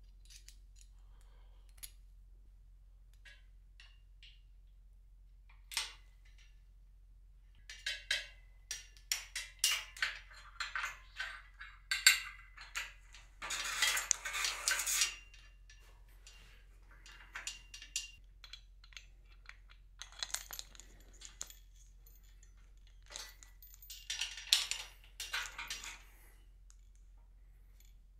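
Small metal hardware clinking and clicking in short, irregular bursts as a cable tower's steel snap hook, cable and pulleys are handled, with a denser spell lasting a second or two about halfway through.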